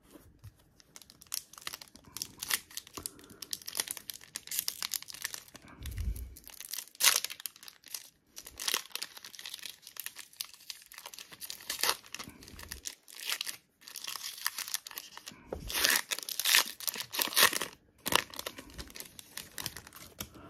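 Trading-card pack wrapper crinkling and being torn open by hand, in irregular crackling bursts with louder stretches about six, twelve and sixteen seconds in.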